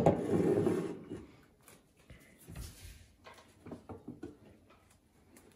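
Faint scattered clicks and taps of small objects being handled, such as a bottle and glasses on a table.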